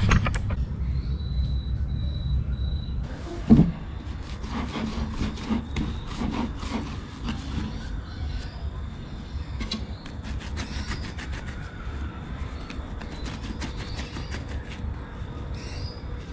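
Soft, sticky naan dough being kneaded by hand in a wooden bowl: many short wet squishing clicks as it is pressed, stretched and lifted, with one loud thump about three and a half seconds in. A steady low rumble lies underneath.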